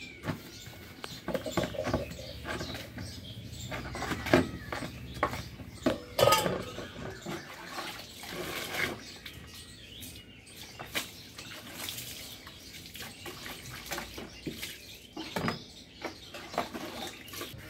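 Dishes being washed by hand: steel tumblers and pots clinking and knocking against each other and the concrete, with water splashing and being poured over them.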